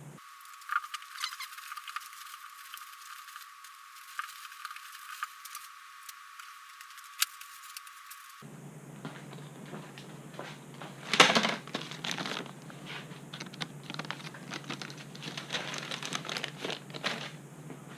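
Hands working PEX tubing and fittings: scattered clicks, taps and rustling, with a louder clatter about 11 seconds in and a run of quick small clicks after it.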